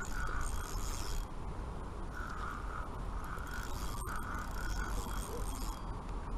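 Spinning reel cranked by hand, its gears whirring and clicking in spells as a hooked fish is wound in.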